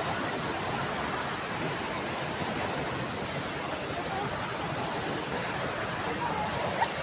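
Steady rush of falling water from a large waterfall, a dense even hiss with no let-up. A short sharp click comes near the end.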